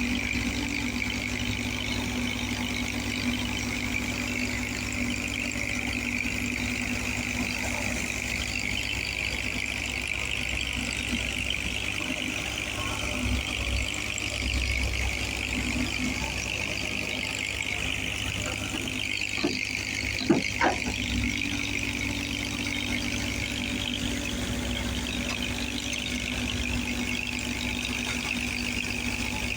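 Excavator's diesel engine idling steadily, with a couple of sharp clicks about twenty seconds in.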